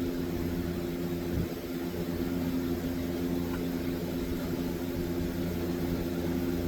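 A motor running steadily, a constant hum with a few low steady tones and no grinding or cutting.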